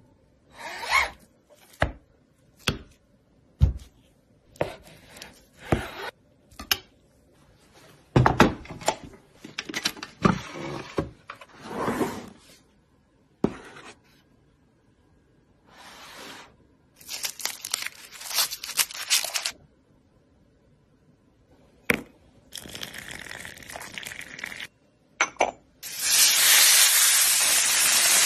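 Short knocks, scrapes and rustles of food and packaging being handled, with a longer rustling stretch about two-thirds of the way in. Near the end, slices of beef start sizzling loudly in a hot frying pan.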